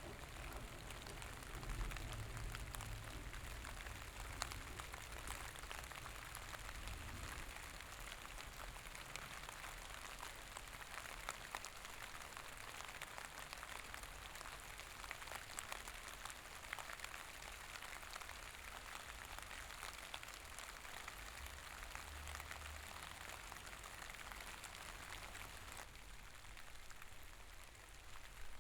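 Steady rain falling, a soft patter of many small drops.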